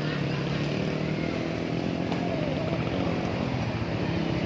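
A vehicle engine running steadily, with a constant low hum under general traffic noise. No telolet horn sounds.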